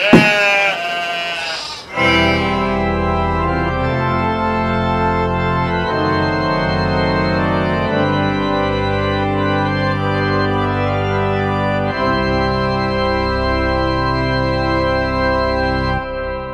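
Organ music: sustained, full chords that change every few seconds and fade near the end. It is preceded by a brief, wavering high-pitched sound.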